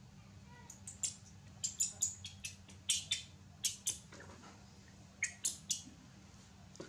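Baby monkey giving a quick series of short, high-pitched squeaks, about a dozen in clusters, with a pause shortly before the last few.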